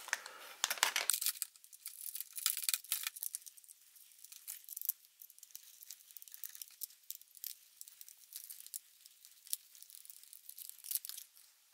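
Faint, irregular clicking and rustling of hard plastic RC body parts being handled, with small screws being turned by a hex driver into a plastic fender flare and styrene panel.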